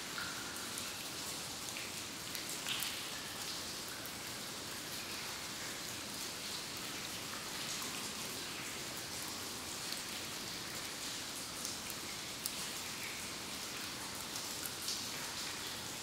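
Water dripping in a cave: single drips landing at irregular intervals, a few seconds apart, over a steady hiss of water.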